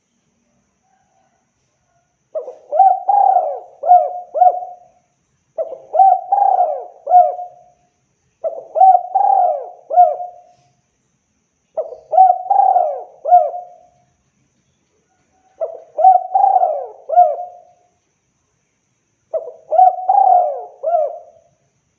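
Spotted dove (tekukur) cooing: six phrases of several notes each, repeated about every three to four seconds, starting about two seconds in.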